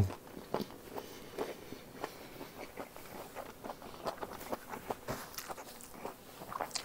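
Quiet, irregular soft clicks and ticks: mouth and hand noises of a person eating.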